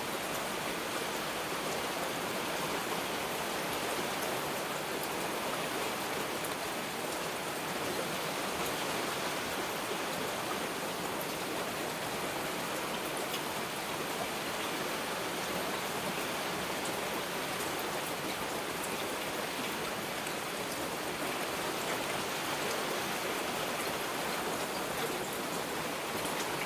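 Heavy rain falling steadily: a dense, even hiss of rain with faint scattered drop ticks, and no thunder.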